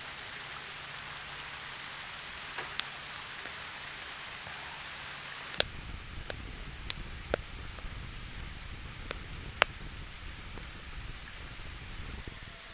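Wood fire burning in an upright split log (a Swedish torch): a steady hiss with sharp, irregular crackles and pops, which come more often and louder from about halfway through.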